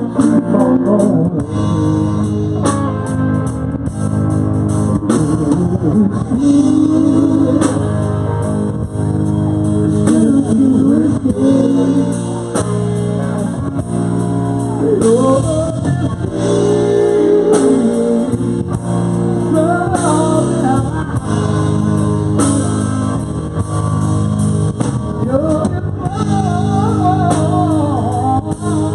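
Live band playing a slow blues-style ballad: a man singing lead over two electric guitars, an electric bass and a drum kit.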